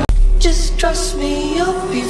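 Background music: the track breaks off abruptly at the start and a new passage begins, with a deep held bass note under a melodic line that slides between notes.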